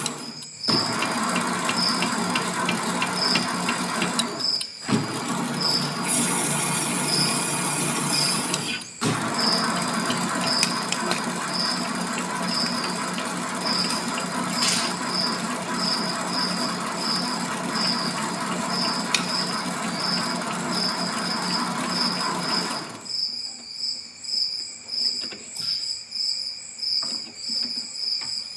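MX 600A mini lathe running with a steady motor hum, cutting out near the end. Crickets chirp in a regular high pulse throughout.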